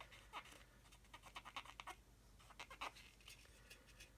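Faint, irregular scrubbing of a cotton bud rubbed back and forth against a plastic model part, in quick short strokes, wiping excess surfacer filler from a seam.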